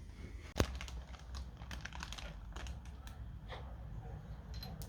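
Light, irregular clicks and taps of tools and engine parts being handled, with one sharper click about half a second in.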